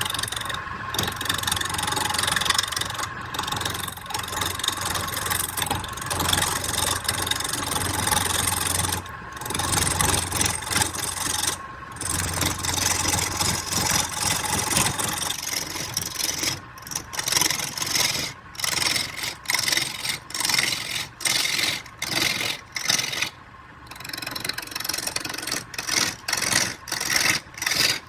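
Wood lathe running while a tool scrapes and rasps against the spinning wood. From about halfway the sound breaks into many short strokes with brief gaps.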